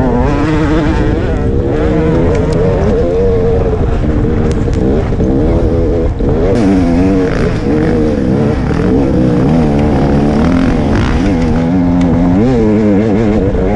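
Off-road dirt bike engine running hard under load up a rocky hill, its pitch rising and falling again and again as the throttle is worked.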